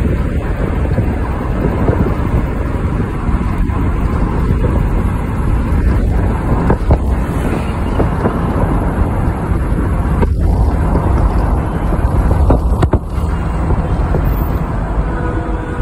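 Wind buffeting the microphone over the steady rumble of a moving vehicle's road and engine noise, with a couple of brief knocks. A steady pitched tone comes in near the end.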